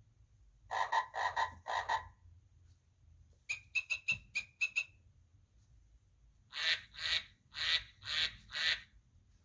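Recorded animal sounds from a children's button sound book's speaker: a frog croaking four times, a bird chirping in a quick run about halfway through, then a series of five more animal calls near the end.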